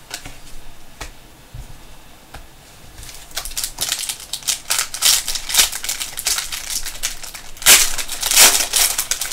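Foil trading-card pack wrapper crinkling and crackling as it is handled and torn open: faint ticks at first, then a dense run of quick crinkles from about three seconds in, loudest near the end.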